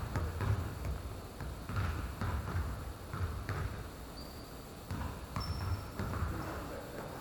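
A basketball being dribbled, its bounces thumping on the court about twice a second, with a short pause around the middle.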